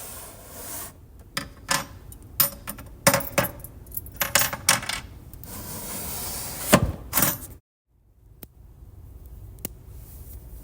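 A quick series of sharp clicks and clatters, about a dozen hits bunched over five or six seconds with hissy noise between them. They cut off abruptly a little past the middle, leaving only faint background noise.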